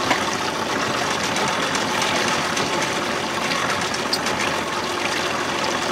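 Outboard motor running steadily at low trolling speed.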